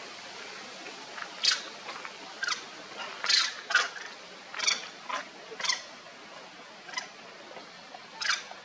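Long-tailed macaques giving short, high-pitched squeaks, about a dozen in a quick run through the middle and two more spaced out near the end, over a steady low hiss.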